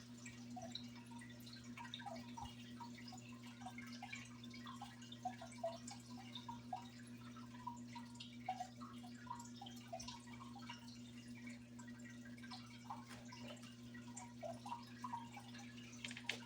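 Faint room tone: a steady low electrical hum with scattered, irregular soft ticks like slow dripping.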